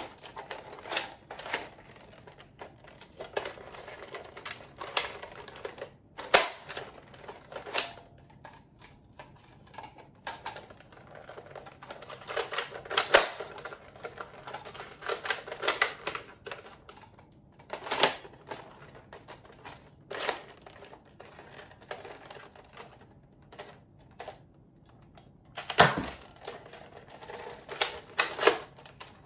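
Plastic clicks and clacks of a Buzz Bee Air Warriors toy foam-dart blaster being handled, loaded and primed, in irregular sharp clicks with a few louder clacks near the end.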